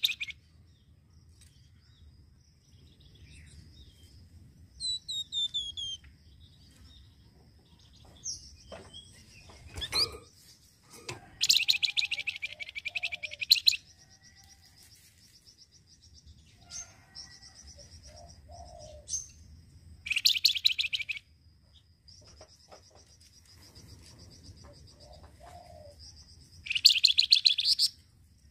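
Caged flamboyan songbird calling in three loud bursts of rapid, chattering repeated notes, each one to two seconds long, with softer chirps and short whistles between them. A thin, steady high trill runs in the background.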